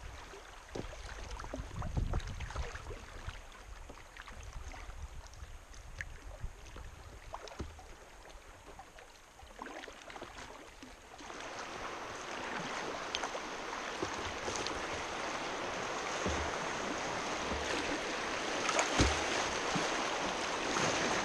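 River water flowing past a kayak with scattered paddle splashes, then the rush of whitewater rising from about halfway through and growing louder as the kayak runs a rapid.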